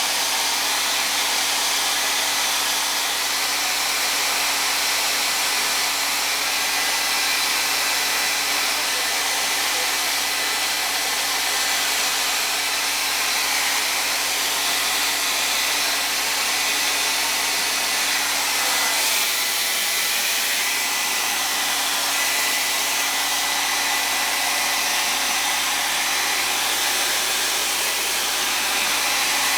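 Revlon hair blow dryer running steadily while drying hair: a continuous rushing of air with a faint, steady high tone over it.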